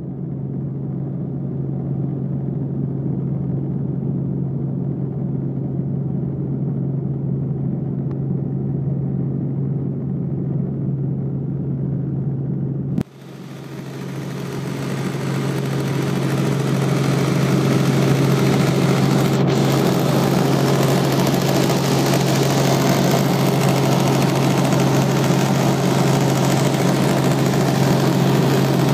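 Helicopter cabin noise in flight: a steady low drone from the rotor and engine under a wash of rushing air noise. It cuts off abruptly about 13 seconds in and returns louder, with more hiss.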